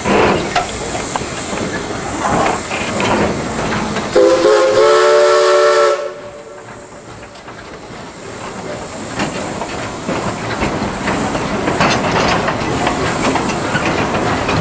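Narrow-gauge steam locomotive blowing its chime whistle for about two seconds near the middle, several notes sounding together and cutting off sharply. Around it, the coaches roll along with wheels clicking over the rail joints and steam hissing.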